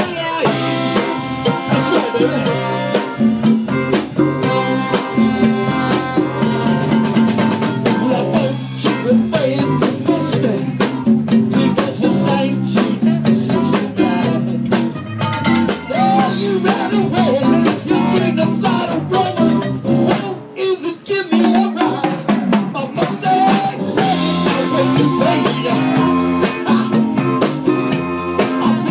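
A live band playing an upbeat number: a horn section of trombone, trumpet and saxophone over a drum kit and congas, with a steady beat throughout.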